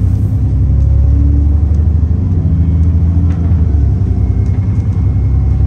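Inside an Enviro400 double-decker bus on the move: a steady, loud, low rumble of engine and road noise.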